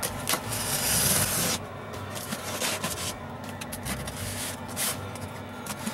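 Knife blade scraping and slicing along packing tape on a cardboard box. One long rasping stroke comes about half a second in, then shorter intermittent scrapes.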